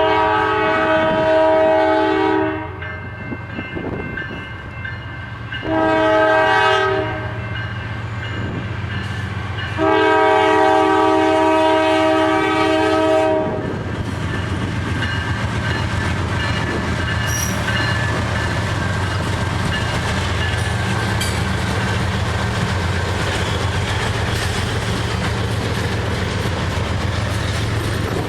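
Diesel freight locomotive's multi-chime air horn sounding a long, a short and a long blast, then the train rolling past with a steady engine rumble and wheels clicking over rail joints.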